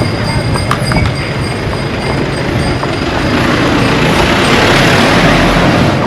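Busy street traffic: a motor vehicle passes close by, its rushing noise over a low rumble swelling from about halfway and peaking near the end.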